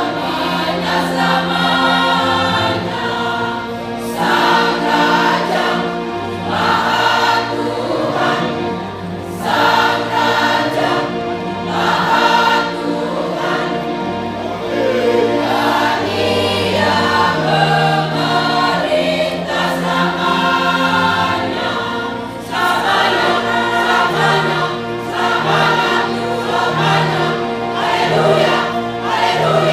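A large choir, mostly women's voices, singing together in several parts.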